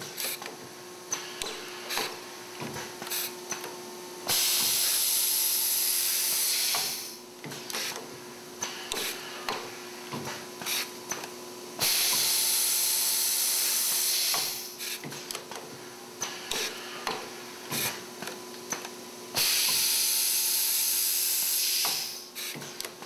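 Electroimpact semi-automatic C-frame riveter running three fastening cycles. Each cycle opens with a loud rush of air hiss lasting two to three seconds, followed by a run of sharp pneumatic clicks and clacks as the head shifts stations and the rivet is fed and set.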